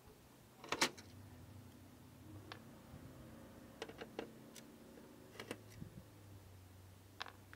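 Screwdriver working the screws that hold a home theater's power-supply board, giving scattered sharp clicks of the tool and screws against the metal chassis, the loudest cluster about a second in. A faint steady low hum runs beneath.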